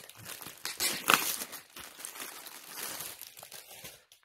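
Plastic wrapping around a pack of yarn balls crinkling as it is handled, with a louder crackle about a second in; it cuts off suddenly near the end.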